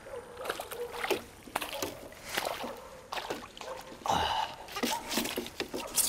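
A freshly landed crucian carp splashing and flapping while being handled, with irregular knocks and clicks of handling gear.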